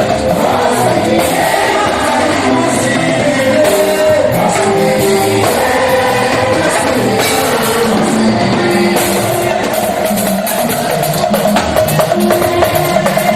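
A choir singing with a live band, drum kit and percussion keeping a steady beat.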